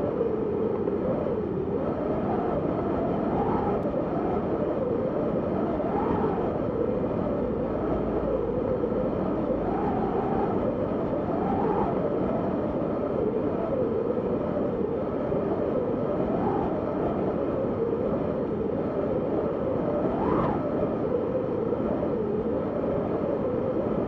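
Blizzard wind howling: a steady rush of wind with a whistling howl that wavers in pitch, rising in gusts every few seconds.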